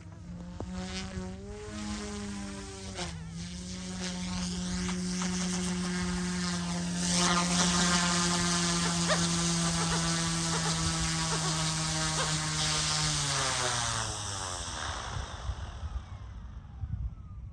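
OMP M2 mini RC helicopter's electric motors and rotors buzzing at a steady pitch, growing louder over the first several seconds. About thirteen seconds in, the pitch drops as the rotors wind down, and the sound fades out.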